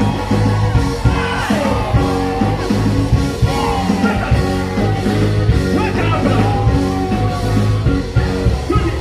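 Music with a singer over a steady bass line and regular drum beats.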